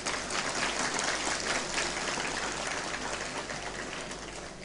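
Audience applauding: a dense patter of clapping that fades away near the end.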